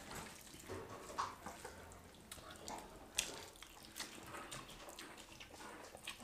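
Two people slurping and chewing spicy instant noodles: faint, irregular wet mouth sounds with a few sharp clicks.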